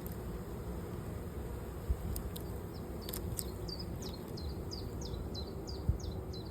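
Honeybees buzzing around an open hive, a steady hum. From about halfway through, a small bird repeats a short, falling, high chirp about three times a second. Two soft low thumps come through as well.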